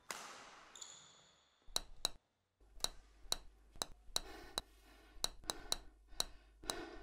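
Table tennis rally: the ping-pong ball clicking sharply off paddles and table, a few hits a second, starting about two seconds in. A short fading sound opens the stretch.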